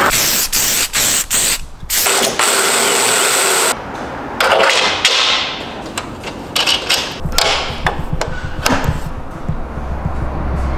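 Cordless drill running a 20 mm drill bit ground to a countersink angle, cutting countersinks into metal brackets in several short bursts for the first few seconds. Then scattered metal clicks and knocks as an over-centre latch is fitted by hand, with a low rumble under the last few seconds.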